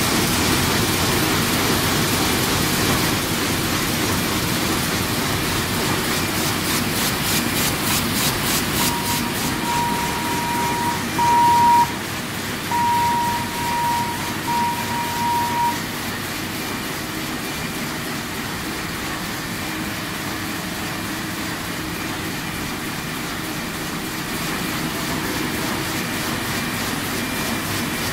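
Sheet-fed offset printing press running, a loud steady machine noise. For several seconds around the middle, a series of high, even electronic beeps sounds over it.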